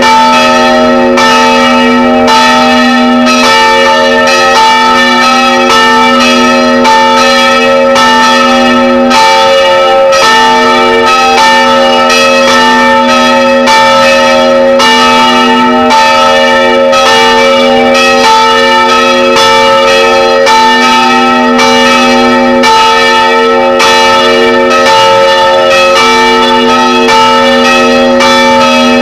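Three bronze church bells of 250 kg, 110 kg and 55 kg swinging and ringing together, heard very loud from right beside them in the belfry. Their strokes overlap without a pause, under a continuous ringing hum.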